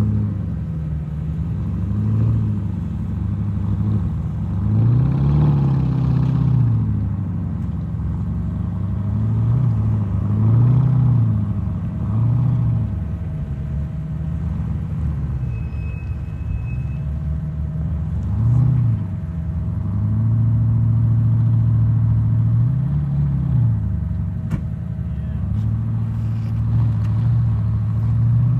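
Porsche Cayenne's engine revving up and down over and over as the SUV crawls up a steep rutted dirt climb. The revs swell and drop every second or two, with a couple of longer steady pulls near the end.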